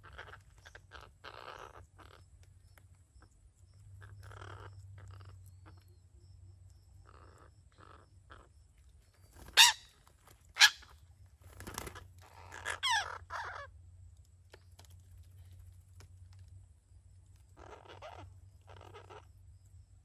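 Green parakeets calling at a nest hole: soft raspy squawks now and then, two loud shrill screeches falling in pitch about halfway through, then a short burst of chattering calls.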